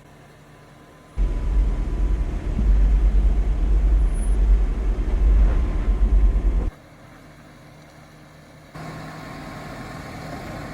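Off-road Jeep crawling in four-wheel-drive low: a loud, low rumble of engine and drive noise from about a second in to about seven seconds, starting and stopping abruptly. Quieter stretches of steady engine hum come before and after it.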